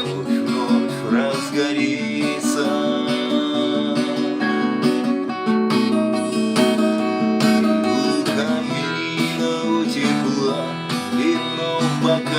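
Instrumental break in a song, led by acoustic guitar, plucked and strummed.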